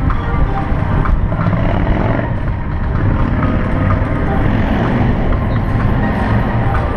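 Steady wind rumble and rolling noise from a bicycle moving along a city street, picked up on a bike-mounted action camera, with traffic noise around it.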